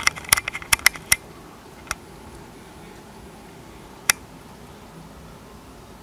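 Sharp, irregular clicks and taps: a quick cluster of about ten in the first second, then single ones about two and four seconds in, over a steady faint hiss.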